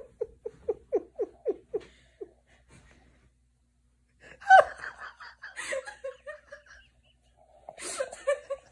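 Laughter: a quick run of short 'ha-ha' pulses at the start, a sudden louder cry about four and a half seconds in, then more bursts of laughing near the end.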